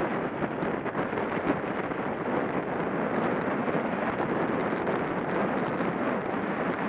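Steady rush of wind over the microphone and tyre noise from a track bicycle riding at about 30 mph on a wooden velodrome track.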